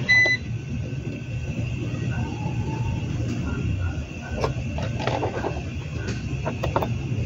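A short electronic beep right at the start, over a steady low hum. In the second half come a few clicks and knocks as test probes and a clamp meter are handled and set down.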